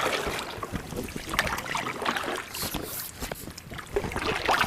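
Kayak on the water: paddle water splashing and dripping, with a scatter of small knocks and clicks against the hull.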